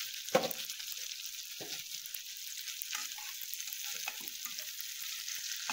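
Chopped garlic, onion and chilli sizzling in hot oil in a kadai, a steady frying hiss broken by a few knocks, the loudest about a third of a second in.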